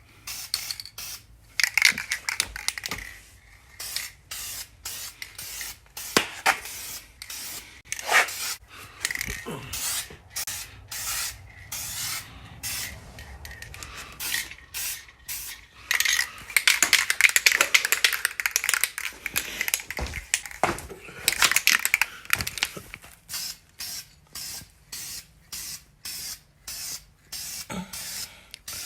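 Spray can of epoxy paint being sprayed in many short bursts of hiss, with a few longer sprays in the middle, coating suspension parts against rust.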